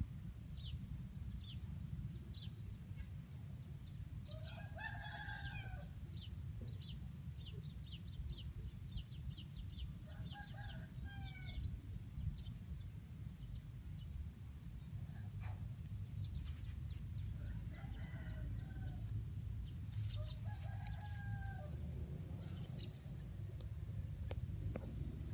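Chickens calling in the background, with about four drawn-out calls spread through. Small birds chirp in quick high runs, thickest in the first half, over a steady low rumble of wind on the microphone.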